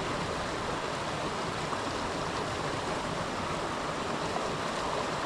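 Mountain creek rushing steadily over rocks and small cascades.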